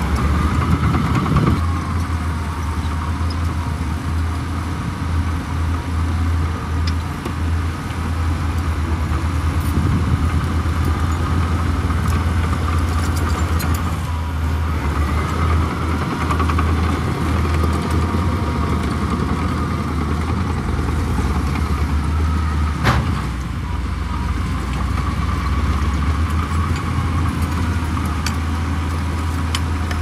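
Heavy earthmoving machine's diesel engine running steadily under load, a low drone with a fainter whine that slowly rises and falls. One sharp knock about twenty-three seconds in.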